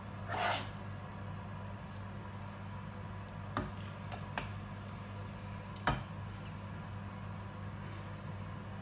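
A serving spoon scraping curry once, about half a second in, then knocking lightly against the cookware three times, over a steady low hum.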